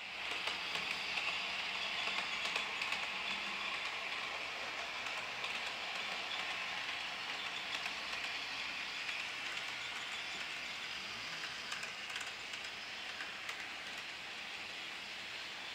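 HO scale model train running along the layout track: the locomotive's motor and its metal wheels on the rails make a steady hissing rattle with faint clicks. It is loudest in the first few seconds and grows quieter as the train moves on.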